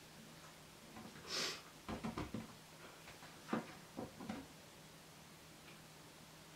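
Soft scattered knocks and scuffs as a small dog shifts its paws on an inflatable exercise ball and is handed treats, with a short hiss about a second and a half in.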